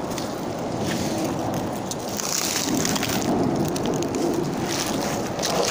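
Domestic cat purring steadily, heard close while it is being stroked: a sign of contentment. Scattered light crackles and rustles from fur and dry leaves run through it.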